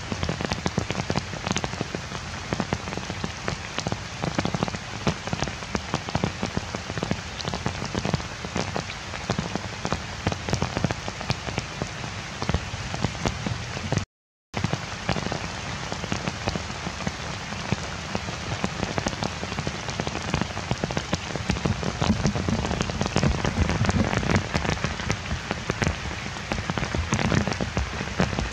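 Heavy rain falling steadily on leaves and the forest floor, a dense patter of drops. It cuts out to silence for about half a second near the middle.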